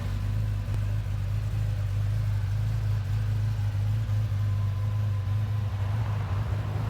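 Porsche 911 Turbo RSR engine idling steadily with a constant low hum.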